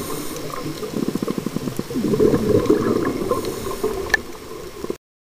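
Underwater: a scuba diver's exhaled bubbles burbling and gurgling from the regulator, swelling louder about two seconds in, with one sharp click a little after four seconds. The sound cuts off suddenly near the end.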